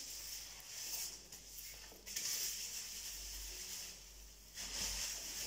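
Hands scrubbing and squeezing long wet, shampooed hair, a soft hiss that comes and goes, starting about two seconds in and again near the end.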